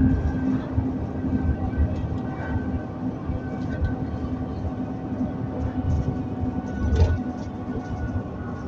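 Alexander Dennis Enviro400 (Trident 2) double-decker bus under way, heard from inside the cabin: a steady engine and driveline drone with a constant whine over it. There is a single rattling knock about seven seconds in.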